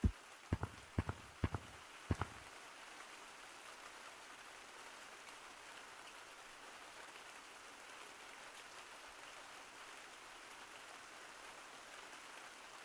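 A run of sharp knocks, about two a second, stops a little over two seconds in. A faint, steady, rain-like hiss continues after them.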